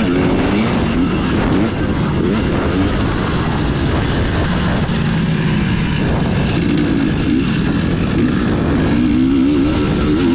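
KTM 300 EXC two-stroke single-cylinder enduro engine being ridden hard, its pitch rising and falling over and over as the throttle is opened and closed, with a dense rushing noise behind it.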